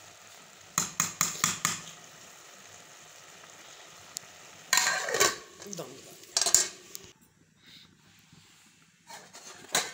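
A metal spoon clinks against a pot several times in quick succession about a second in, over a steady faint sizzle of jaggery rice cooking. Around five to six and a half seconds in, a metal lid clatters onto the pot to seal the rice for dum steaming.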